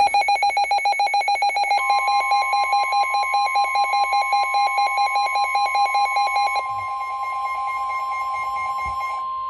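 A weather alert radio sounding a warning: rapid electronic beeping, about eight beeps a second. About two seconds in, a steady NOAA Weather Radio warning alarm tone (1050 Hz) joins it. The tone carries on alone after the beeping stops near the seven-second mark. Together they signal that a severe thunderstorm warning is about to be read.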